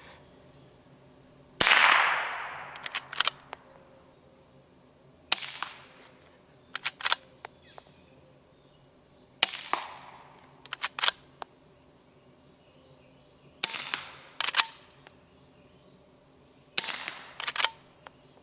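Five shots from a Volquartsen Summit straight-pull .22LR rifle firing CCI Standard ammunition, each followed about a second later by the clicks of the bolt being cycled. The first shot, unsuppressed, is much the loudest, with a long fading echo; the later shots are quieter and sharper, fired through the Rugged Oculus22 modular suppressor in its standard and short configurations.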